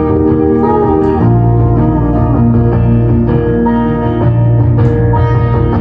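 Instrumental music played through a Yamaha HTR-2071 AV receiver and NS-PA40 speaker set, with sustained guitar- and keyboard-like notes; a strong bass line comes in just over a second in.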